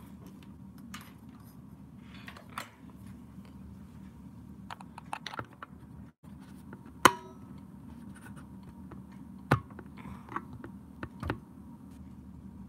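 Scattered clicks and knocks of a phone being handled close to its microphone, with one sharp click about seven seconds in and a few smaller knocks after it, over a low steady hum.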